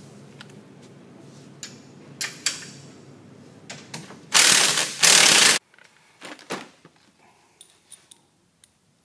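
Hand tools working the 15 mm A-arm bolts on a Polaris RZR 1000's front suspension: a few sharp metal clicks and clinks, then two loud rattling bursts of about half a second each near the middle as a bolt is run out, then scattered light ticks.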